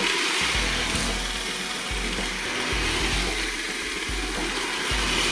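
LEGO City Passenger Train 60197 locomotive's Powered Up train motor whirring at speed as the loco drives and slides across a tile floor, a steady whir with a faint high whine. A music track's bass beat pulses underneath.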